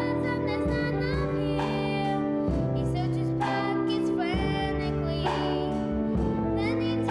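A school children's choir singing a slow holiday song over sustained instrumental chords.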